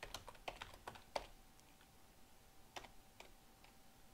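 Faint computer keyboard typing: a quick run of keystrokes in the first second or so, then a pause and a few more key presses later on. A faint steady hum sits beneath.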